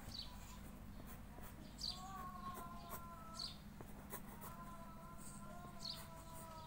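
Pencil strokes scratching faintly on paper while a bird chirps in the background: short, high, falling chirps about every second and a half. Faint held whistly tones come in twice, the first starting about two seconds in.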